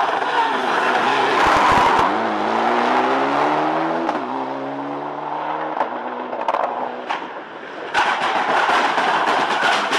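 Mitsubishi Lancer Evolution IX rally car's turbocharged four-cylinder engine accelerating hard through a hairpin, its pitch rising and stepping with gear changes, then fading as the car climbs away. From about eight seconds in comes a loud full-throttle pass with rapid sharp pops and crackles.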